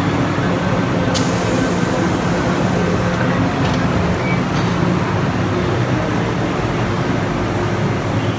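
Hong Kong MTR M-Train standing at the platform, its equipment humming steadily, with a hiss of air about a second in that lasts around two seconds, followed by a couple of faint clicks.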